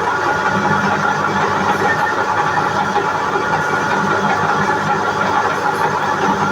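Metal lathe running steadily while turning a shaft, with a constant hum and whine.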